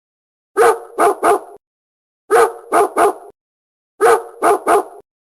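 Dog barking in sets of three quick barks. The same three-bark set repeats three times at even spacing, like a looped recording.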